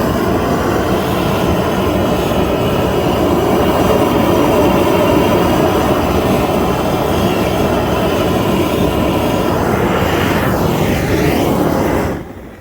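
Propane torch flame burning steadily and loudly, stopping abruptly near the end.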